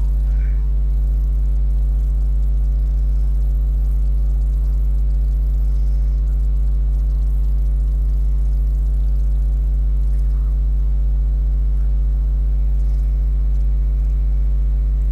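Steady low electrical hum at about 50 Hz with a buzz of higher overtones, unchanging throughout: mains hum on the recording.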